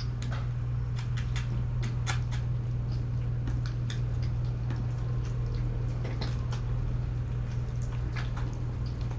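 Kittens eating noisily at a shared food bowl: many small irregular clicks and smacks of chewing and lapping, over a steady low hum.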